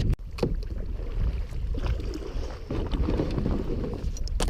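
Wind buffeting the microphone as a steady low rumble, with a few short sharp knocks near the start and end.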